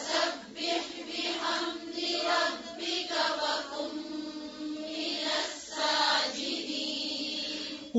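Several voices chanting a Quran verse together in unison, in melodic tajweed recitation, softer than the single lead reciter, repeating the line after the teacher.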